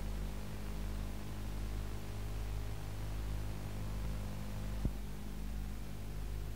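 Steady low electrical hum with hiss on an old analogue video tape soundtrack, with a single short click about five seconds in.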